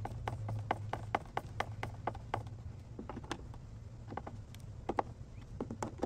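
Hand-held Phillips screwdriver turning a screw in a plastic doorbell mounting bracket on a wooden door frame. It makes light clicks, about four a second for the first two and a half seconds, then fewer and irregular. The screw is too small and too loose to bite.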